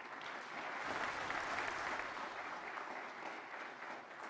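Audience applauding, swelling over the first second and then slowly dying away.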